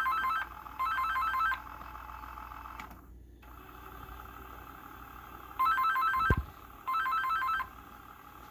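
Electronic telephone ringer warbling rapidly between two pitches in a double-ring pattern: two short bursts, a pause of about four seconds, then two more bursts. A brief low thump comes during the second pair.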